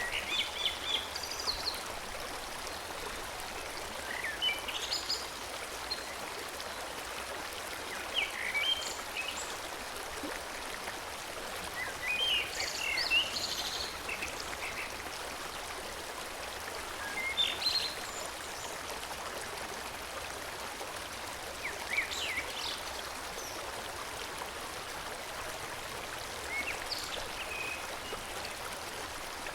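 Forest stream flowing steadily, with a songbird singing a short chirping phrase every four to five seconds.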